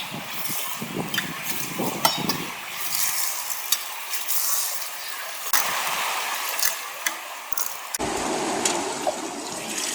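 Water running and splashing through a sluice box, with gravel and small stones clinking against metal. The sound shifts abruptly about eight seconds in.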